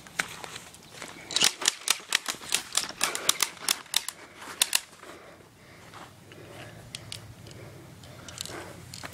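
Toy guns firing: a quick, irregular string of sharp clicks, about a dozen, starting about a second in and stopping about halfway through, followed by only a few scattered clicks.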